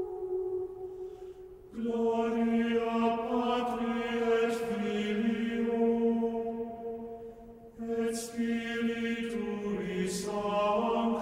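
Slow chanted vocal music: long held sung notes, with a new phrase starting about two seconds in and another about eight seconds in.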